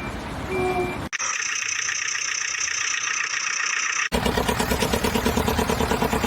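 Vehicle sound effects cut together in abrupt sections. A reversing beep sounds about half a second in. About a second in, a steady high-pitched tone cuts in and stops suddenly three seconds later, giving way to an engine idling with a rapid, even chug.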